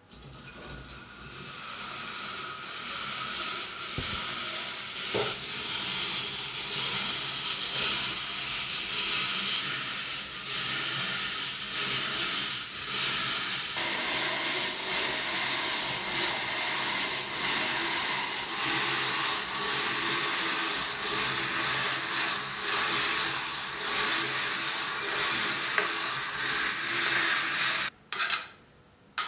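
Hand-cranked rotary vegetable grater shredding carrots against its perforated steel drum: a steady, loud rasping that stops a little before the end.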